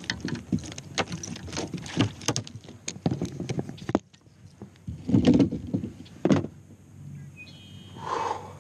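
Irregular knocks and rattles of a landing net and fishing rod being handled against a plastic kayak hull, with a few louder thumps about five and six seconds in.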